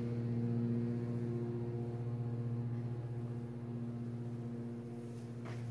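A steady low hum with a few evenly spaced overtones, unchanging throughout, like a household appliance or electrical hum, with a faint brief rustle near the end.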